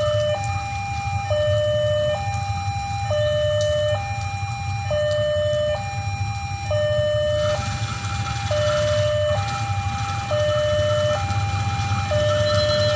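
Railway level-crossing warning alarm sounding two alternating tones, high-low, switching about once a second, over a steady low rumble.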